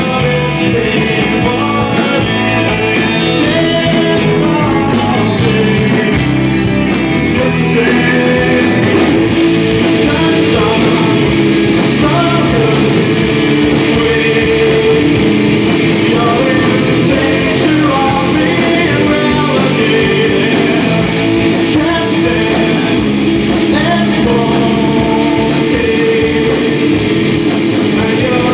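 Live rock band playing loud, with distorted electric guitars, drums and a male lead voice singing.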